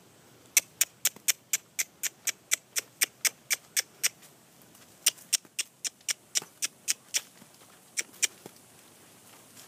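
A person clucking with the tongue to drive a horse on: quick, sharp mouth clicks at about four a second, a long run at first, a second run after a short pause, then two last clicks.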